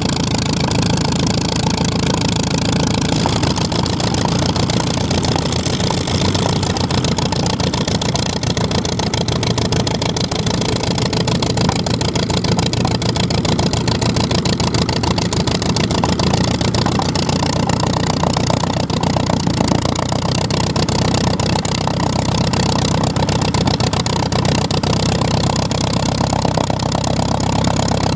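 Klemm 35D's Hirth HM 504 four-cylinder air-cooled piston engine running steadily at low power.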